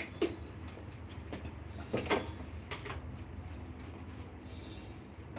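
A few light knocks and clicks of kitchen containers as a jar's lid is put on and the jar is set down, over a steady low hum.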